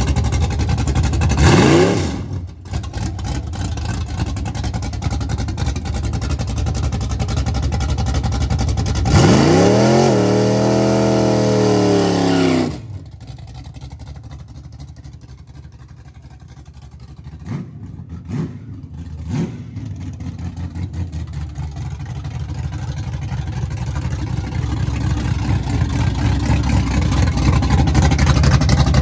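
1976 Chevy Nova drag car's 355 small-block Chevy V8 idling loudly, with a quick throttle blip about two seconds in. About nine seconds in it revs hard for about three seconds in a burnout on wet slicks, the pitch rising and falling, then drops off suddenly as the car pulls away. A few short revs follow, and the engine grows steadily louder near the end as it stages.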